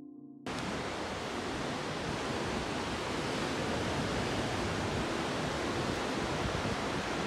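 Piano music cuts off about half a second in, followed by a steady, even rush of ocean surf breaking on a beach.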